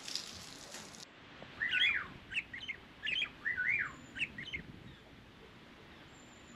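A songbird singing a run of short, quickly rising and falling chirps and warbling notes, with a few thin high whistles, for about three seconds, then falling silent.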